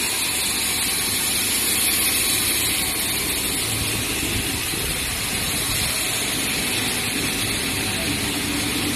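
HDPE wire insulation extrusion line running: a steady, even mechanical noise with no changes.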